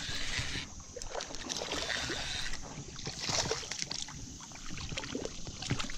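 Water sloshing and splashing, with scattered knocks and rustles close to the microphone.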